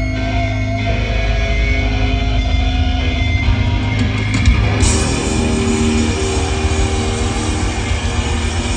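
Hard rock band playing loudly live: electric guitars ringing out on held notes over drums and bass, with the sound growing brighter and fuller about five seconds in.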